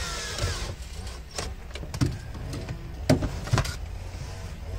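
Cordless drill-driver whirring briefly on a screw, its pitch rising and falling before it stops within the first second. Then a few sharp clicks and knocks of plastic dashboard trim being handled, the loudest about three seconds in.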